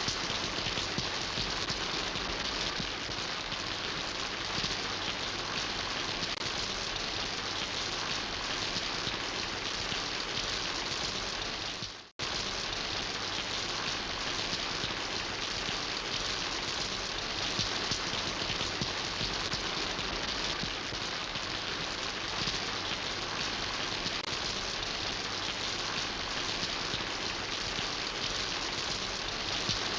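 Steady rain falling, a dense even patter. About twelve seconds in, it fades out and breaks off for a moment, then comes back abruptly.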